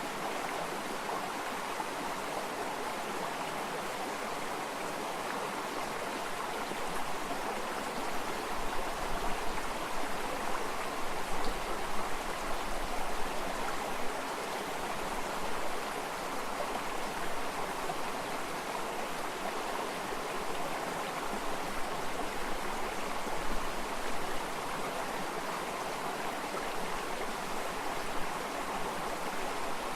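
Water running and splashing in a stream: a steady rushing with a low rumble that grows louder for a while in the first half.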